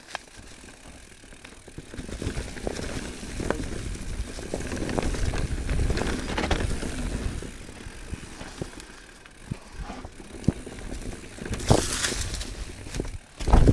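Mountain bike riding over a rough dirt trail: tyres rolling over ground and rocks with rattles and clicks from the bike, as a low rumbling noise that swells from about two seconds in. A few sharper knocks come near the end.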